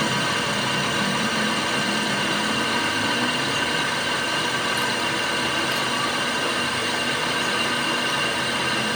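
Steady mechanical hum of a running machine or engine, unchanging throughout.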